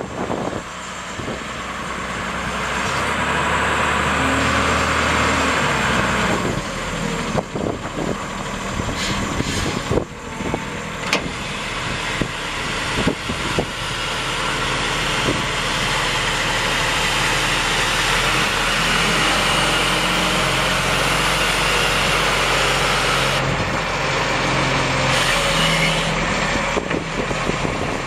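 Case 1085B Cruz Air wheel excavator's Detroit six-cylinder turbo diesel running steadily as the machine moves, its pitch shifting a few times, with a run of clanks and knocks in the middle.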